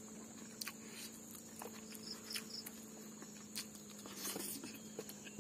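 Soft, scattered clicks of close-up chewing and of fingers gathering rice on a banana leaf, as rice and cooked silkworm pupae are eaten by hand. A steady faint high whine and a low hum run underneath.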